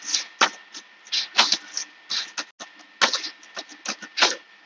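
Keys clicking on a laptop keyboard: an irregular run of quick taps with short pauses between them.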